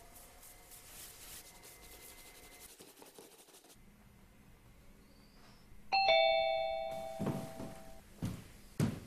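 Two-tone doorbell chime rings once about six seconds in, a higher note then a lower one (ding-dong), both fading over about two seconds. A few dull thuds follow near the end.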